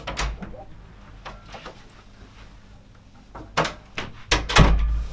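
Wooden interior door with a lever handle being opened and closed: a few latch and handle clicks and knocks, then the door shutting with a thud near the end.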